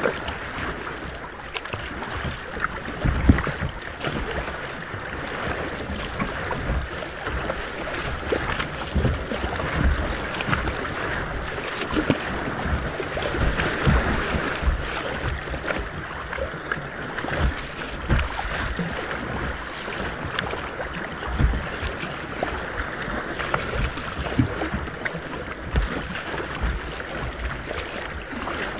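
Sea kayak moving through choppy sea water: a steady splashing hiss of water breaking along the bow, with irregular low gusts of wind buffeting the microphone.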